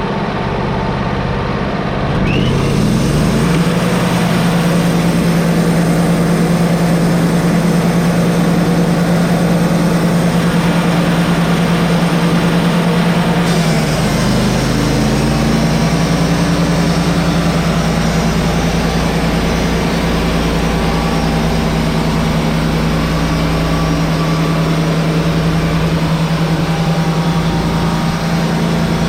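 Wood-Mizer LT35HD portable sawmill running at full throttle, its engine rising to speed a couple of seconds in. The band blade then cuts lengthwise through a red oak cant, and the engine note dips briefly about halfway through.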